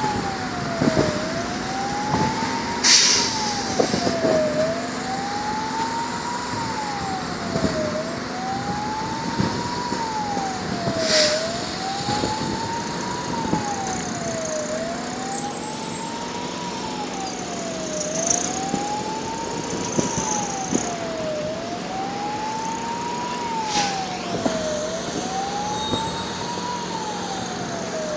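Fire engine siren wailing, a single tone climbing and falling again about once every three and a half seconds, over steady traffic noise, with a couple of brief hissing bursts.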